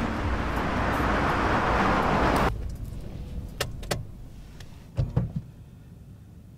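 Car on a wet street, a loud hiss of traffic and tyres growing louder, then cut off abruptly about two and a half seconds in. After it comes the quiet of a car cabin, with two light clicks and then two soft thumps.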